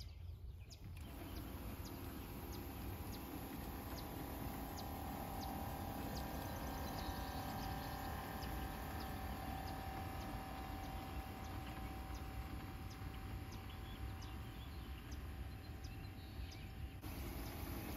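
Push boom sprayer's pump running with a steady hum as the boom sprays, with small birds chirping in short high notes.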